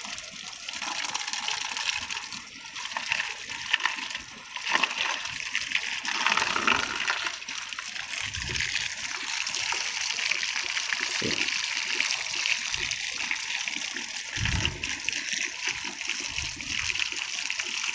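A stream of running water pouring and splashing into a plastic basin of sandy mud as it is stirred by hand, washing the mud away to free nut grass tubers. There are a few low sloshes along the way.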